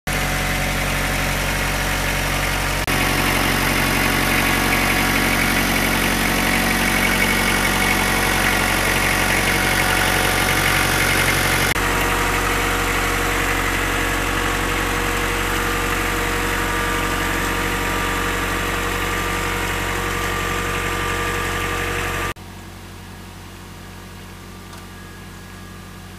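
Kubota compact tractor's diesel engine running steadily and close by, a loud, even drone, as the tractor hauls the rope that lifts the wind turbine's power head. The sound drops sharply about twenty-two seconds in and carries on much fainter.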